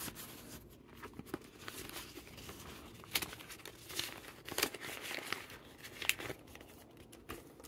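Paper dollar bills and a clear plastic zip pouch in a ring binder rustling as cash is handled and slipped into the pouch, with irregular small clicks and rustles.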